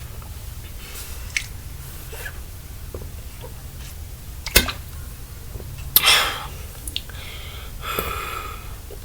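Sharp, breathy gasps and exhales from a person who has just chugged a bottle of soda. A single sharp click comes about halfway through, and the loudest gasp follows about a second later.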